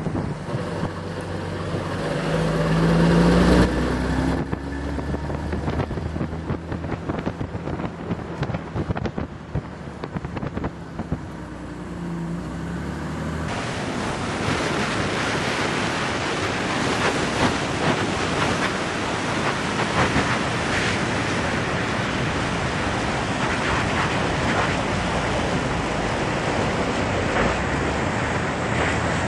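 1948 Dodge convertible under way, its flathead six engine pulling with a rising hum over the first few seconds. From about halfway a steady rush of wind on the microphone covers it as the open car travels at speed.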